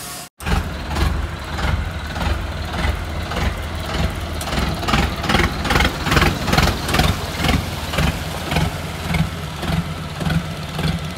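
Motorboat engine running steadily on a test run, with a regular pulsing about twice a second. The run checks whether the boat, which used to jump, now runs smoothly.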